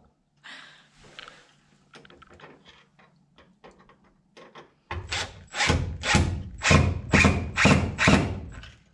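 Cordless drill driving a screw through a light-mounting bracket into a pine plank wall, in a run of short trigger bursts about half a second apart starting about five seconds in. Before that, light clicks and rubbing as the bracket is held and lined up.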